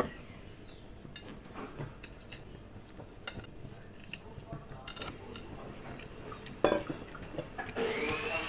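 Light clinks and knocks of dishes being handled on a plastic cutting board: a ceramic plate set down and a stainless steel bowl moved, with one louder knock about two-thirds of the way through. Near the end a steady high tone begins.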